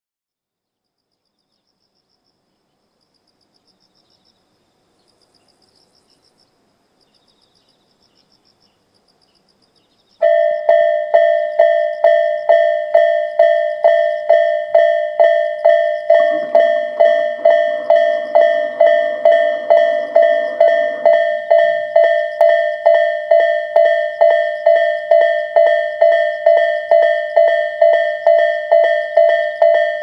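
Japanese railway level-crossing warning bell (the electronic Tobu-type bell) starting abruptly about ten seconds in and ringing on steadily at about two strokes a second, meaning the crossing is active for an approaching train. Before it there is near quiet with faint high chirping, and a low mechanical noise runs under the bell for about five seconds in the middle.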